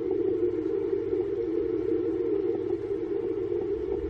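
Longwave static from a Yaesu FRG-100 communications receiver tuned to the 489 kHz beacon band with its DSP switched off: a steady hiss squeezed into a narrow, low-pitched band, with a few faint static crackles from distant thunder.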